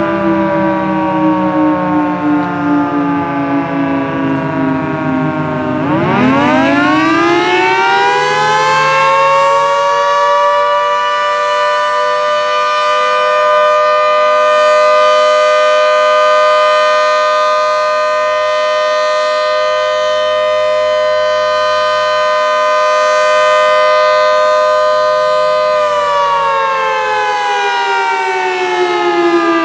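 Federal Signal 2T22B two-tone mechanical warning siren sounding a fire signal. Its chord falls for the first few seconds, winds sharply back up about six seconds in, holds a steady tone for about sixteen seconds, then starts to wind down near the end.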